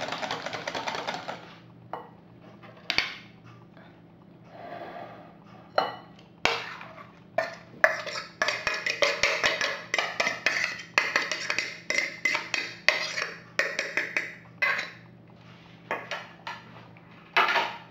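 A utensil knocking and scraping against a mixing bowl while pancake batter is stirred: a few separate knocks at first, then quick irregular strokes, about two or three a second, from about six seconds in until near the end.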